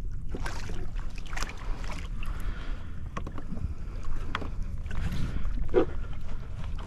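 Water splashing and sloshing against a kayak hull, with wind rumbling on the microphone and scattered sharp clicks and knocks.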